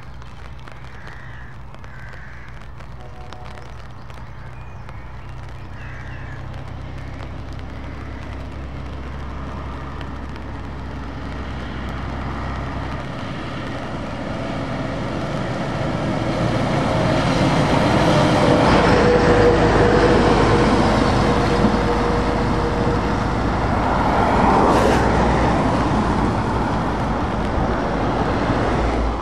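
Scammell heavy tractor unit's diesel engine pulling a loaded low-loader trailer, growing steadily louder as it approaches and passes, loudest about two-thirds of the way through, then easing off as it pulls away, with tyre noise on the wet road.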